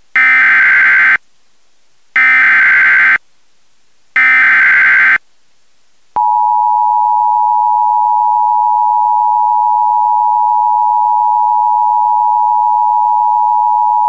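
Emergency Alert System tones for a Severe Thunderstorm Warning, as aired on radio. First come three one-second bursts of SAME header data, a second apart, which carry the coded alert. About six seconds in, the two-tone EAS attention signal starts and holds steady to the end, marking the start of the alert.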